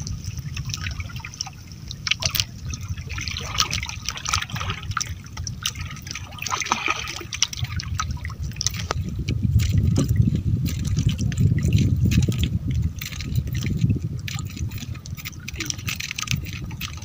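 Water splashing and trickling at the side of a small boat, with many short drips and splashes over a low rumble that grows louder about halfway through.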